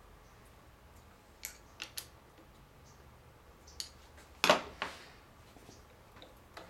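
Scattered sharp clicks and knocks of a hand tool and the parts of a small bench metal lathe being handled and adjusted, with the lathe not running. The loudest knock comes about four and a half seconds in, with a smaller one just after.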